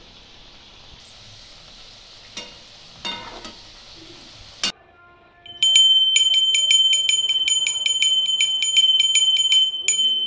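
Oil sizzling steadily as chickpea-dal pithas deep-fry in a wok, with a metal spatula clinking against the pan twice. About five seconds in this gives way to a puja bell rung rapidly and without pause, about five strikes a second, much louder than the frying.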